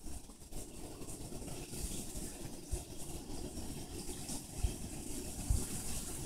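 Faint crunching of a praying mantis chewing through a live Dubia roach's shell, over a steady low rumble, with two dull low bumps in the second half.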